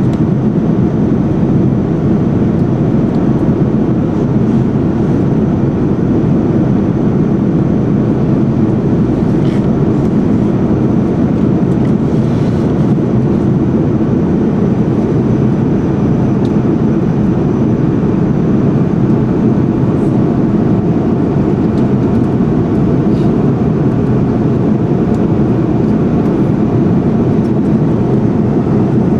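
Steady airliner cabin noise: an even rush of airflow and engines, unchanging throughout.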